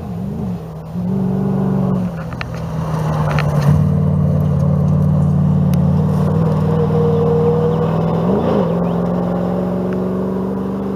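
Rally truck's engine pulling hard along a gravel stage, its note held steady and high, with brief dips and rises in pitch near the start and again about eight and a half seconds in.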